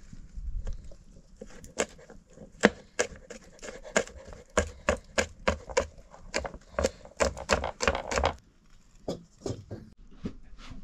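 Knife chopping food on a wooden board: a steady run of sharp chops, about three a second, starting about two seconds in. It stops after about eight seconds, followed by a few lighter knocks.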